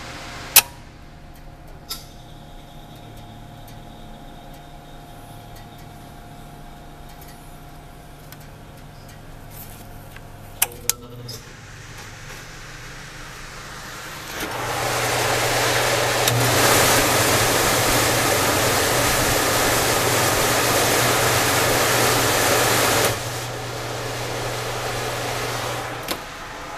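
Blodgett Mark V convection oven: sharp clicks from its controls as the cook-and-hold timer knob is turned, then the oven's blower fan motor starts and runs with a steady rush of air over a low electrical hum. The fan runs loud for about eight seconds, drops to a lower level, and stops with a click near the end.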